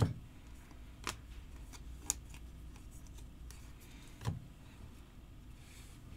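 Trading cards being handled and flipped through by hand, giving four short, light clicks, the first, near the start, the loudest, over a faint steady low hum.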